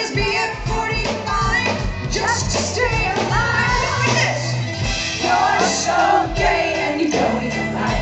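Live pop-rock band playing, with a woman singing lead over a steady drum beat and bass.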